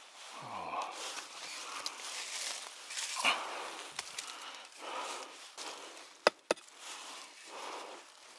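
Footsteps crunching through dry leaf litter, about one step a second, with two sharp knocks close together a little after six seconds in.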